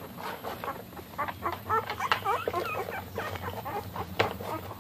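One-week-old pit bull puppies squeaking and whimpering in many short, high-pitched cries, thickest in the middle, with a few sharp clicks among them.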